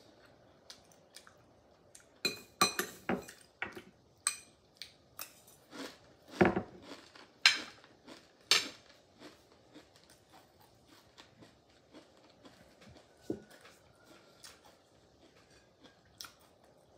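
Metal spoon clinking and scraping against a glass plate and oyster shells: a cluster of sharp, ringing clinks from about two to nine seconds in. After that come softer clicks and quiet chewing.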